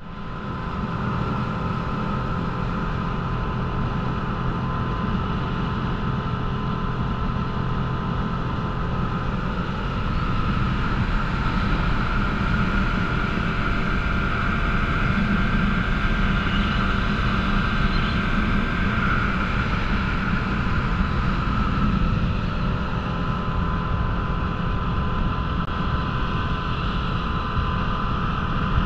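Small motorboat under way at speed: its engine runs steadily, with a constant rush of wind and water over it, getting a little louder about ten seconds in.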